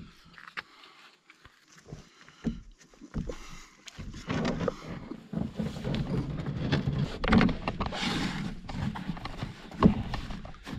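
Knocks and thumps of a person climbing into a canoe and settling in as it is pushed off from the shore: a few scattered knocks at first, then from about four seconds in a busier run of thumping and rustling against the hull.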